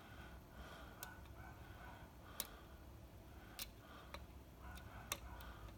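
Faint, scattered metallic clicks of a hook pick working the pins of a Schlage KIK lock cylinder under tension, about five sharp ticks a second or so apart.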